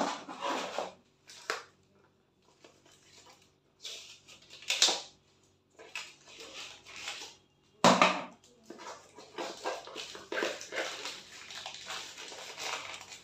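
Clear plastic packaging crinkling and rustling as a wrapped paper box is cut open with scissors and unwrapped. There is a sudden loud crackle about eight seconds in, then steady crinkling to the end.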